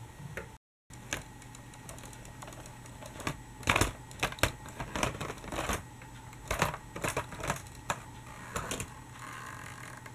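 Irregular plastic clicks and clatter, loudest a few seconds in, as a toy trolleybus is pushed by hand over plastic Lego track pieces.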